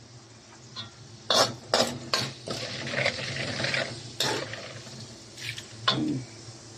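A metal ladle scraping and clacking against a wok as it scoops annatto seeds out of hot oil: a handful of sharp knocks with scraping in between.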